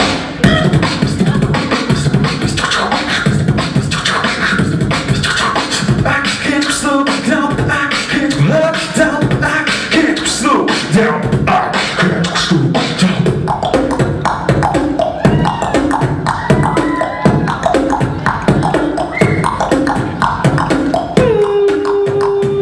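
Solo beatboxing amplified through a handheld microphone: a fast, dense run of mouth-made drum sounds with short sung tones mixed in. Near the end a steady held note comes in under the beat.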